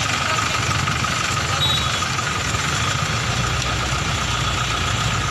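A steady engine rumble, like a vehicle idling, with a constant thin whine over it and no rise or fall in level.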